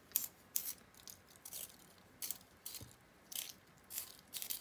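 A coloured pencil with a worn-flat tip is being twisted in a handheld pastel-pencil sharpener. The blade shaves the wood and lead in short, dry, high-pitched strokes, about two a second.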